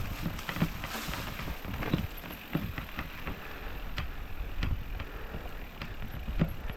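Mountain bike rattling over a rough, rocky trail: irregular clicks and knocks, about one every half second to second, over a low rumble.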